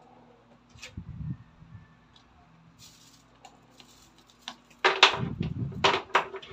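Handling noise of a large plastic action figure being gripped and moved on a tabletop: a soft bump about a second in, then a cluster of louder knocks and rubs near the end.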